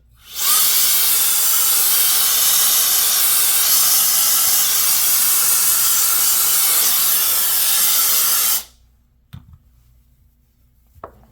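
Compressed air hissing steadily for about eight seconds, blowing dust off a laptop screen, then cutting off suddenly.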